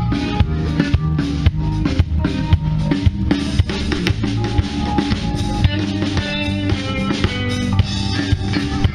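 Music with a steady drum-kit beat, snare and bass drum, over a bass line.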